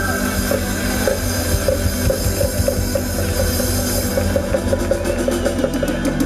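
A live band plays with a steady drum-kit beat under bass, guitars and horns. The drumming grows busier about four seconds in.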